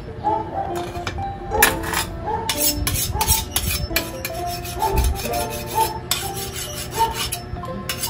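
A kitchen knife being sharpened: its blade is scraped in quick strokes, about three a second, starting a second or so in. Background music plays under it.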